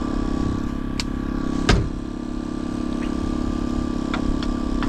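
An engine running steadily with an even hum. A loud thump sounds nearly two seconds in, and lighter knocks come about a second in and again near the end.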